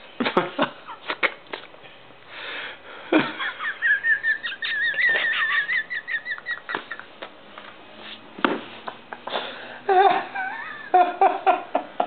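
People laughing in fits, with one long, high, wavering wheezy laugh a few seconds in.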